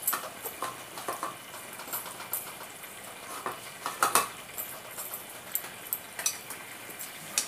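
Chopped aloe vera gel and herbs sizzling on low heat in coconut oil in a kadhai, a steady soft hiss with a few sharp clicks and pops, the loudest about four seconds in.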